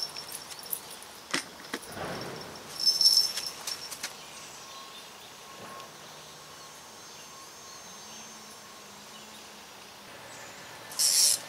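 Small bell clipped to a propped fishing rod jingling in short bursts near the start and again about three seconds in, the sign of a trout tugging at the bait. A short rushing burst near the end.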